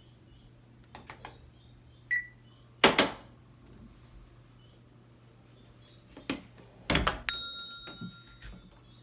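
Toshiba automatic washing machine being worked: sharp knocks and thuds of its lid and controls, a short beep about two seconds in and a longer held beep about seven seconds in, over a low steady hum.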